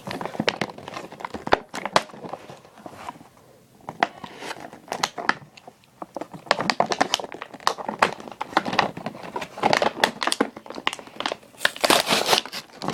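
Toy truck packaging being worked open by hand: plastic and cardboard crinkling and crackling in irregular clicks, with some tearing, busiest near the end.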